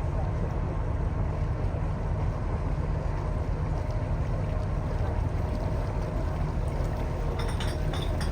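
Tour boat running steadily with a continuous low engine rumble as it cruises.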